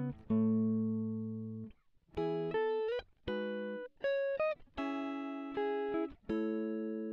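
Background music of guitar chords, each struck sharply and left to ring out, with a short break about two seconds in.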